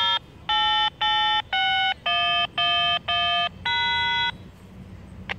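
A short electronic tune of eight beeps, each about half a second long, at changing pitches, like a phone or other small electronic device playing a melody.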